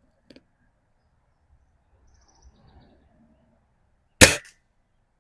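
A single shot from a Haenel Model 311 air rifle firing a pellet: one sharp, loud crack about four seconds in, with a short tail, after a few faint handling clicks.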